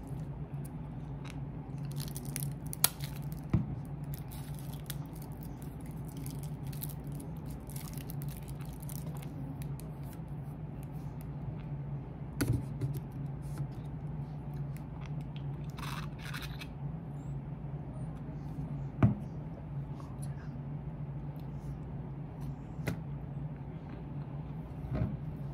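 A steady low hum with scattered light clicks and rustles, and a few sharper knocks, the loudest about 19 seconds in.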